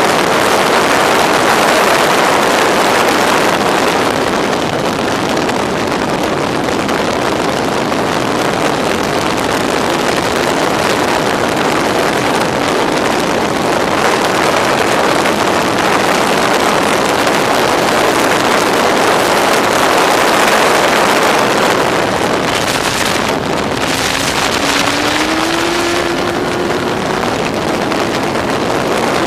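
Onboard sound of a Locost race car at speed on track, its Yamaha R1 inline-four motorcycle engine running under heavy wind noise on the camera microphone. The sound is loud and steady, with a short rising note near the end.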